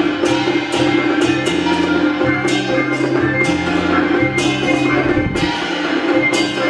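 Taiwanese opera instrumental accompaniment playing, a moving bass line and held tones punctuated by sharp percussion strikes.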